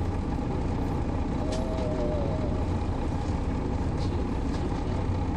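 Cabin of a 2002 MCI D4000 coach with its six-cylinder Detroit Diesel Series 60 diesel engine running at a steady low rumble under road and cabin noise. A few faint clicks or rattles come through.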